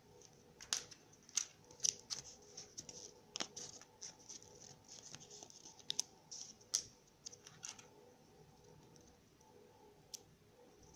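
Hands handling a Kinder Surprise egg and its parts: a run of sharp crinkles and clicks for about seven seconds, then one last click near the end over faint room noise.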